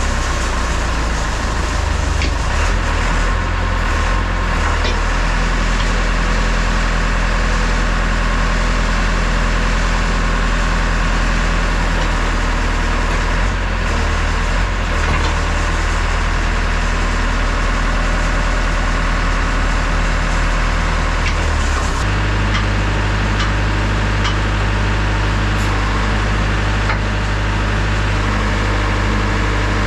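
JCB backhoe loader's diesel engine running steadily. About two-thirds of the way through, its note changes abruptly as the engine speed changes.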